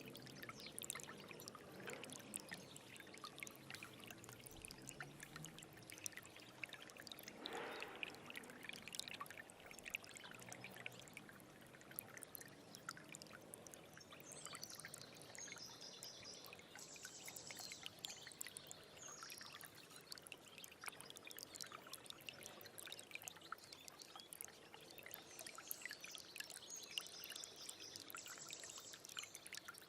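Small stream babbling and trickling, with many small splashes and one stronger splash about a quarter of the way in. A bird calls high up twice, in the middle and near the end.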